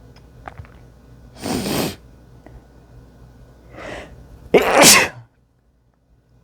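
A person's wet sneezes, two of them, the second the louder.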